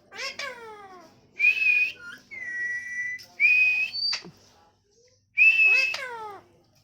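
Indian ringneck parrot whistling: short, steady high whistles alternating with falling, downward-sliding calls, in bursts about every two seconds.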